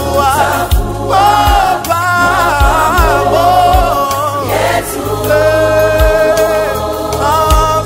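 Choir singing a gospel song over a steady beat and bass, with long held notes in the second half.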